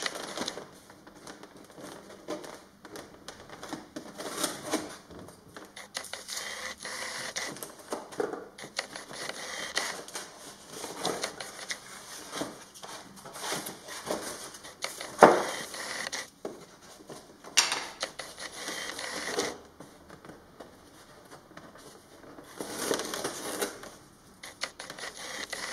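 Hands handling and fitting foam model-airplane parts on a table: irregular scraping, rubbing and small clicks and taps. There is a sharp knock about fifteen seconds in and another a couple of seconds later.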